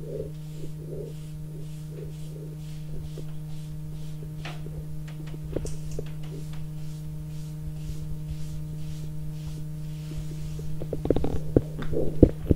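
Chalkboard eraser wiping a blackboard in repeated back-and-forth strokes, heard faintly over a steady low electrical hum. A run of knocks near the end.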